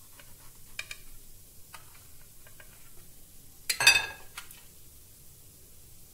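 Knife blade clicking against a steel plate while cutting through a fried potato-poha cutlet, a few separate taps, then a louder metallic clatter on the plate a little before four seconds in.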